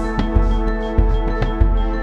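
Background music: sustained chords over a steady drum beat, about three beats every two seconds.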